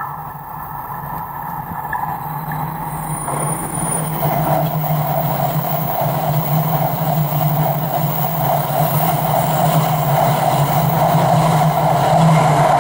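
E5 series Shinkansen train running past, its running noise getting louder over the first few seconds as it draws near, then holding at a steady level with a low hum under it.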